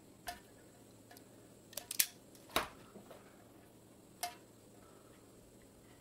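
Small hand tools clicking and snipping at a fine wire held in a metal helping-hands clamp: about half a dozen short, sharp clicks spread out, the loudest about two and two and a half seconds in.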